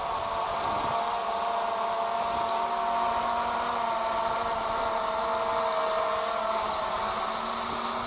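DJI Mavic Air 2 quadcopter flying close overhead, its propellers giving a steady whine that wavers slightly in pitch as it climbs. Wind buffets the microphone underneath.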